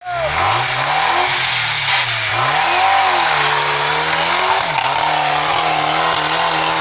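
Off-road vehicle's engine revving up and down several times, then holding a steady speed from about five seconds in, over a loud constant hiss.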